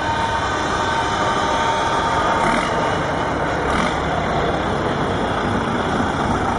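A convoy of heavy trucks driving slowly past at close range, their diesel engines running with a steady, loud noise.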